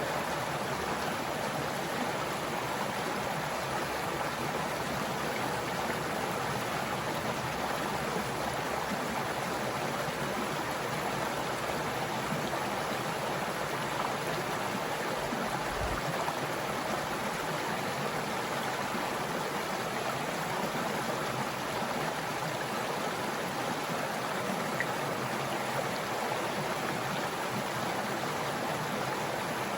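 Stream water running steadily, an even rushing flow that does not change.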